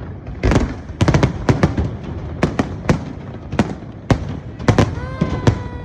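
Fireworks going off in an irregular, rapid series of over a dozen sharp bangs.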